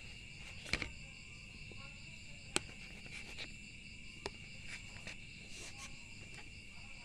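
Crickets chirring steadily in the background, with a few sharp clicks of a metal spoon knocking against the bowl as it scoops young coconut flesh.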